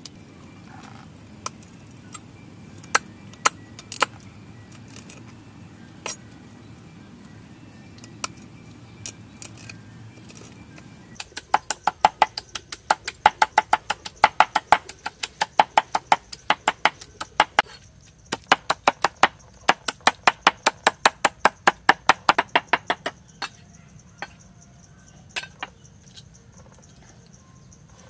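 Cleaver chopping frog meat on a round wooden chopping board: for the first several seconds a few scattered knocks and cuts, then rapid, even strokes about four a second in long runs with brief pauses.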